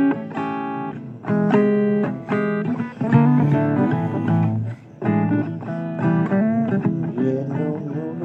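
Guitar playing an instrumental break in a blues song: picked notes and strummed chords over a bass line, changing about every half second.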